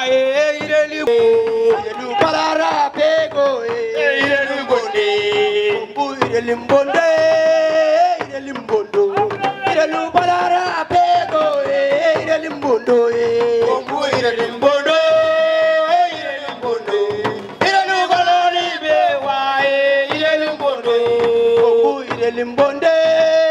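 Traditional West African dance music: a melody in long, held, wavering notes over steady drumming.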